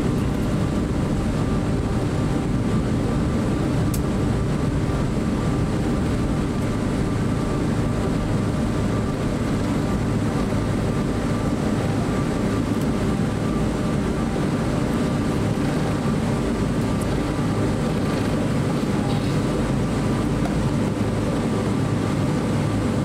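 Cabin noise inside a Boeing 777-300 taxiing on the ground: a steady low rumble from the engines at taxi power and the wheels rolling, with a few faint steady whining tones above it.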